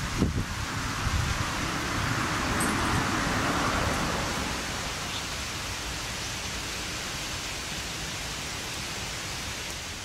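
Steady, even hiss of background noise with no voices, holding a level loudness, and a single short knock about a quarter of a second in.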